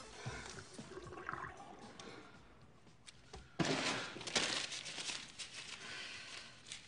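Toilet flushing: a sudden loud rush of water about three and a half seconds in, slowly fading.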